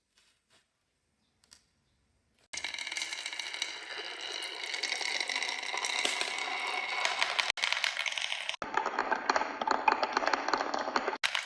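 Marbles rolling and clattering down a marble run track, a dense rattle of many small clicks that starts suddenly after a short silence and changes abruptly partway through.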